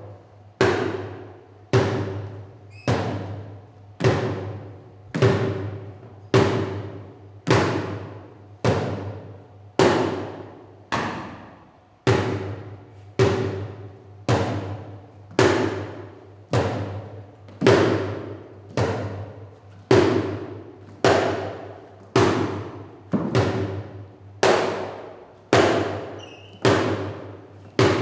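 Drumsticks beating an upturned plastic bucket in a slow, steady beat, about one hit every 0.8 s, each hit ringing briefly as it dies away. A steady low drone runs underneath.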